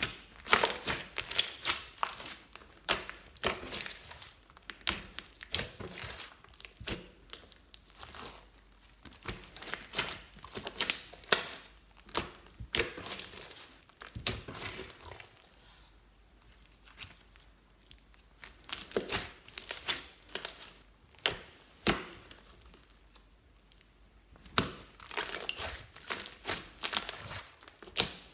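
Hands squishing and stretching slime, making crackling, clicking pops in bouts of a few seconds with short pauses between them.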